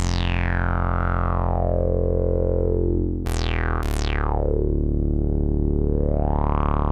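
IK Multimedia Uno Synth, a monophonic analog synthesizer, playing long held bass notes through a resonant filter that sweeps down. The note changes twice just past three seconds in, and the filter sweeps down and then back up again.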